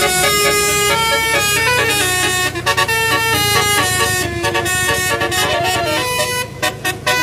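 Multi-tone telolet bus horn of the basuri type playing a melody, its notes stepping up and down in quick succession, with brief breaks between phrases.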